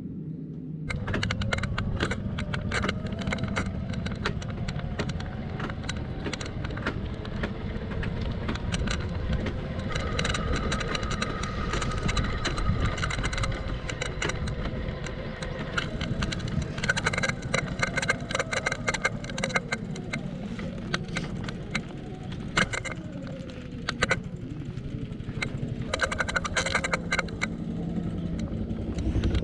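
Bicycle being ridden over pavement, heard from a camera mounted on it: a steady low rumble of the tyres with dense rattling and clicking of the bike and mount, starting about a second in.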